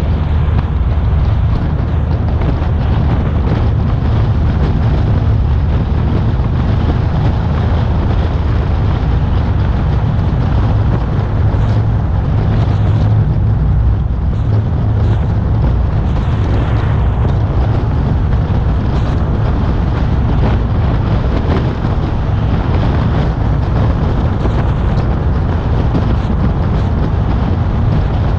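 A car driving steadily along a road: a continuous low rumble of road and wind noise, picked up by a camera mounted on the front bonnet.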